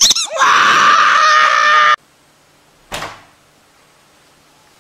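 A squeaky dog toy squealing in one long, steady squeeze for about two seconds, then cutting off suddenly. About a second later comes a single short knock.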